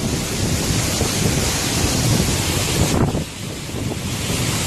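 Hurricane-force wind buffeting the microphone, with driving rain, as a loud, steady rushing noise; it drops somewhat about three seconds in.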